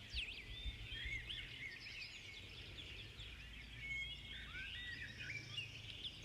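Faint background birdsong: many small birds chirping and twittering, with short rising and falling calls overlapping throughout. A low steady hum runs underneath.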